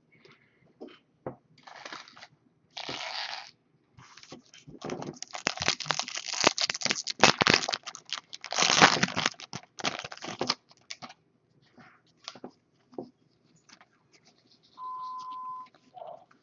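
Foil trading-card pack wrappers being torn open and crinkled, with cards rustling and tapping in the hands. The crinkling is densest and loudest in the middle. Near the end there is a short steady beep.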